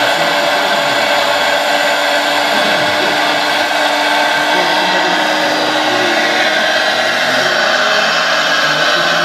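Hydraulic pump of a large-scale RC excavator running steadily as the machine digs and swings a bucket of soil.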